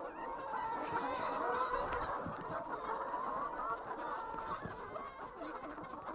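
A flock of chickens clucking, many overlapping calls, while they peck at a feed of chopped tomatoes, with small pecking clicks.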